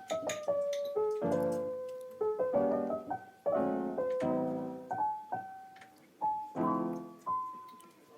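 Background music: a piano playing chords and a melody, each chord struck and left to fade before the next.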